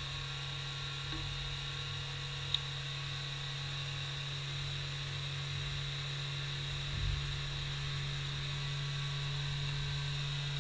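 Steady low hum with a faint whir underneath, broken by a single sharp click about two and a half seconds in.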